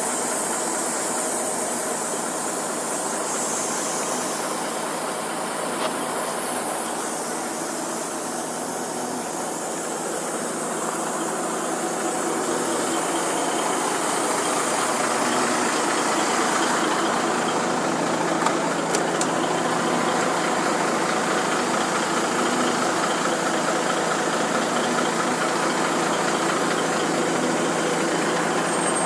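Heavy truck's diesel engine idling steadily, getting slightly louder about halfway through.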